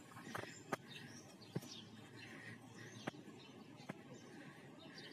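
Faint birds chirping, with a few short, sharp clicks scattered through.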